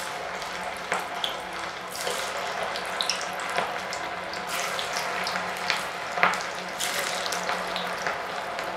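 Vegetable Manchurian balls deep-frying in hot oil in a kadai: a steady sizzle with scattered pops and crackles, growing fuller about two seconds in as more balls are dropped in.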